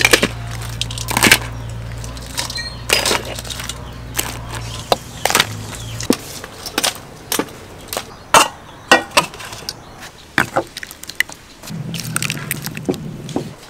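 Cooking clatter: a string of sharp knocks and clinks of metal utensils and a steel wok, over a low steady hum that stops about five seconds in.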